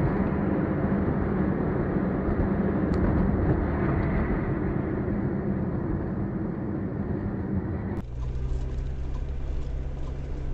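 Steady engine and road noise heard from inside a moving car, recorded through a dash cam. About eight seconds in it cuts to a different car recording, slightly quieter, with a steady low engine hum.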